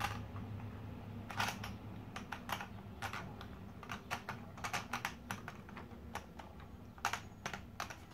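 Light, irregular plastic clicks as the hook mechanism of a Thomas Motorized Cranky toy crane is worked by hand to lower the hook, over a low steady hum.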